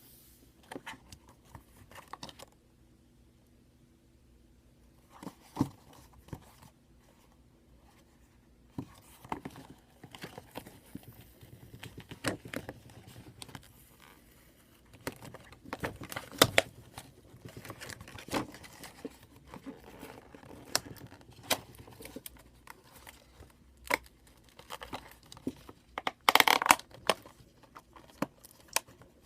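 Product packaging being opened by hand: scattered clicks, scrapes and rustles of cardboard and plastic, with a quiet stretch a few seconds in and a louder tearing burst near the end.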